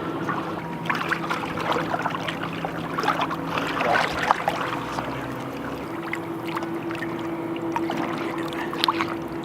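Water splashing and trickling as a landed salmon is held in the river before release, over a steady low hum.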